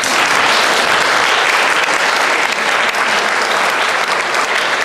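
Audience applauding: many people clapping at once, dense and steady.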